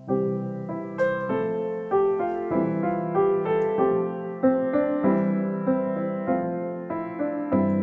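Background piano music: a gentle melody of single notes struck about two a second, each ringing and fading.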